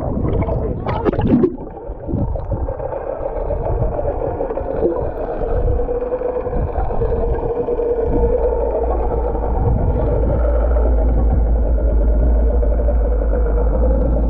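Motorboat engine running steadily, a low drone that grows louder over the first several seconds and then holds level.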